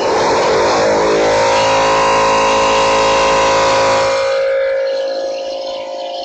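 A motor running with a steady whine, loud at first and easing off about four seconds in.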